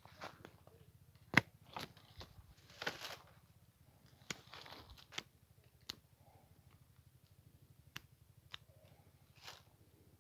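Hand pruning shears cutting quince branches: a series of sharp snips at uneven intervals, the loudest about one and a half seconds in, with short rustles of branches and leaves between the cuts.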